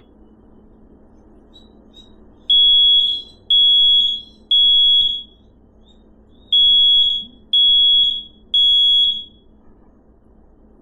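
Kidde smoke alarm sounding its test alarm: loud, high-pitched beeps in two groups of three, about a second apart, with a pause between the groups, stopping about two-thirds of the way through. The alarm is working.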